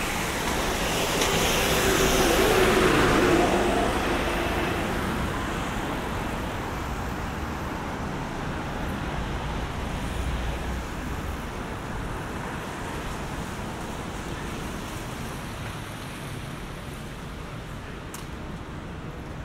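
Road traffic on a rain-wet street: a passing vehicle's tyre hiss on the wet road swells about two seconds in, then the traffic fades to a softer steady wash.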